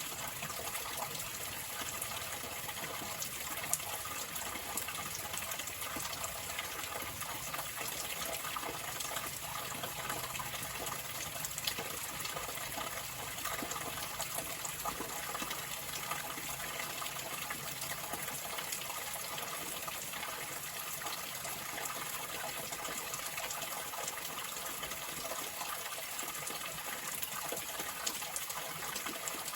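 Running water flowing steadily: an even, unbroken rushing with a few brief clicks.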